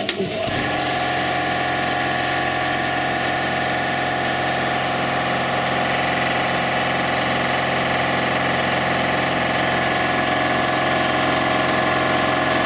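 Clarke industrial air compressor switching on and running steadily, freshly refilled with oil. It starts abruptly and then holds a loud, even machine drone.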